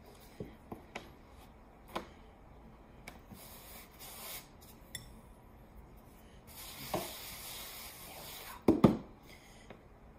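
Wooden rolling pin working pasta dough on a floured pastry mat: light knocks of the pin on the table, a soft rubbing hiss as flour is scattered and spread, and two heavy knocks close together near the end.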